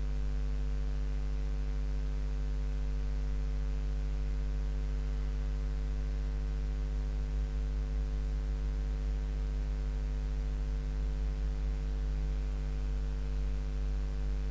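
Steady electrical mains hum, a low buzz with a stack of higher overtones, over a faint hiss.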